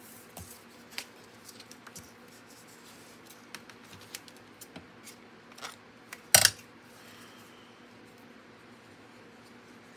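Cardstock and paper pieces being handled on a glass cutting mat: scattered light taps and rustles, with one louder, brief rustle a little after six seconds in.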